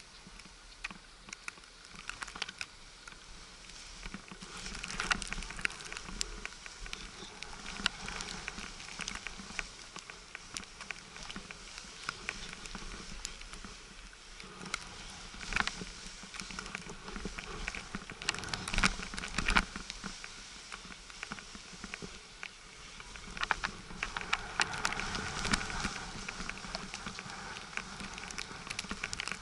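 Snow hissing and scraping under the camera rider's edges sliding downhill over fresh snow, with many small crackles and irregular louder scrapes.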